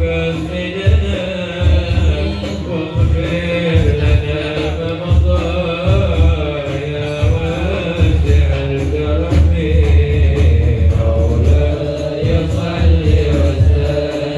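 Men singing a devotional Maulid chant in praise of the Prophet into microphones, amplified through a sound system, with a low beat underneath.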